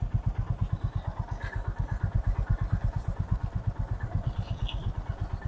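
Motorcycle engine running at a steady idle, an even low putter of about a dozen beats a second.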